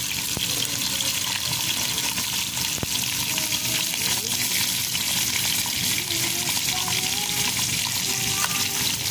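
Steady hiss of tap water running, with one sharp click about three seconds in.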